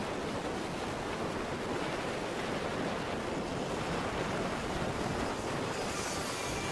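Steady, even rushing noise of wind on the microphone at a kart track, with distant racing karts running under it.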